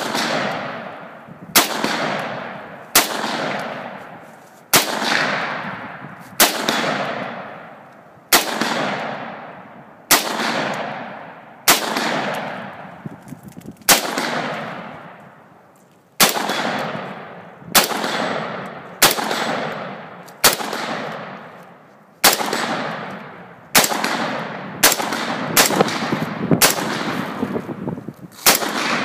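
Bushmaster Carbon 15 AR-15 rifle firing .223 rounds one shot at a time, about twenty shots spaced a second and a half to two seconds apart and coming faster near the end, each followed by a long echo.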